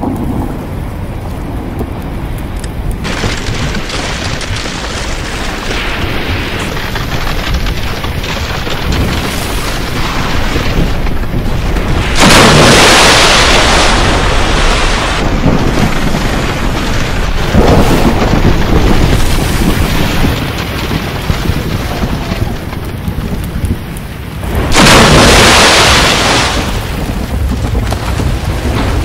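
Rough ocean churning close to the microphone: steady, rushing water noise with a deep rumble, broken three times by louder crashes of breaking waves, the first lasting about three seconds.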